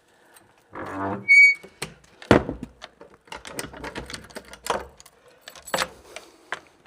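A short rattling creak about a second in and a brief high squeak, followed by a string of irregular knocks and thuds. The loudest knocks come about two and a half seconds in and again near six seconds.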